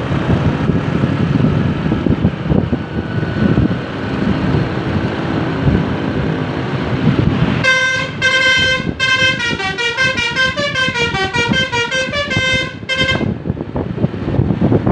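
Bus "telolet basuri" multi-trumpet horn playing a tune about halfway in, lasting about five seconds: a held chord, then a quick run of alternating notes, ending on a held chord. Road and wind rumble from moving traffic runs before and after it.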